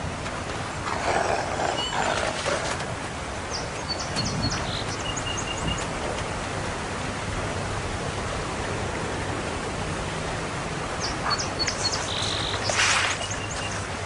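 Outdoor natural ambience with a steady hiss and small bird chirps now and then. Grey wolves feeding at a carcass in snow make short rough bursts of sound about a second in and again near the end.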